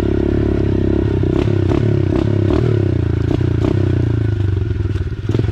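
Mini dirt bike engine running steadily at low speed on a rough dirt trail, with clatter and knocks from the bike jolting over bumps and sticks; the engine eases off near the end.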